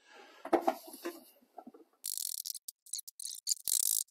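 Handling noises in a pickup truck's bed: a few soft knocks in the first second, then bursts of hissy scraping and rustling in the second half.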